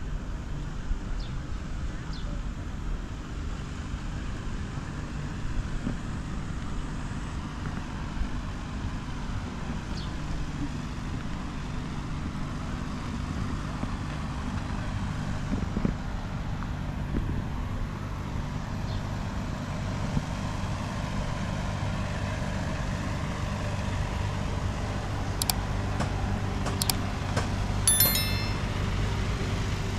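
Steady low rumble of a running motor vehicle, with a few sharp clicks in the second half and a brief high-pitched squeak near the end.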